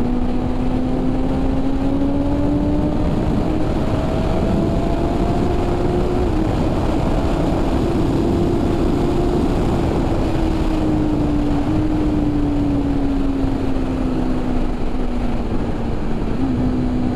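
BMW S1000RR's 999 cc inline-four engine pulling steadily under way, over heavy wind noise on the microphone. Its pitch rises gradually over the first few seconds, holds, then slowly falls through the second half.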